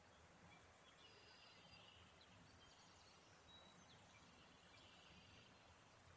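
Near silence: faint outdoor ambience with a few short, faint bird chirps scattered through it.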